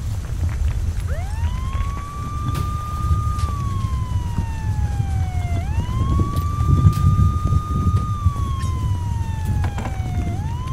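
Emergency vehicle siren in a slow wail, starting about a second in: it rises quickly, holds high, then glides slowly down, and the rise-hold-fall cycle repeats, swinging up again near the end. A steady low rumble runs underneath.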